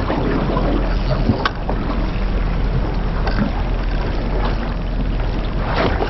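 Wind on the microphone and sea sloshing against a small boat at sea, over a low steady hum, with a few short clicks.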